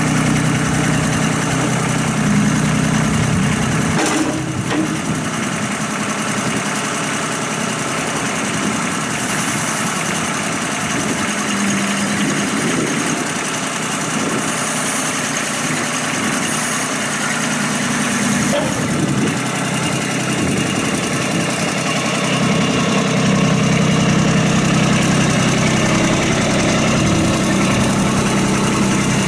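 2016 Kubota B26 compact tractor's three-cylinder diesel engine running steadily near idle, its note shifting several times as the front loader hydraulics raise the bucket. It gets louder in the last quarter, with a sharp clank about four seconds in and another near the middle.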